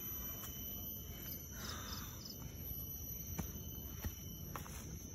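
Forest insects buzzing and chirping in a steady high-pitched drone, with a few faint footfalls and twig snaps on a dirt trail.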